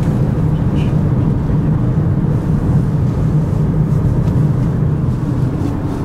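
Steady road and engine noise of a Mazda driving at speed, heard inside the car's cabin.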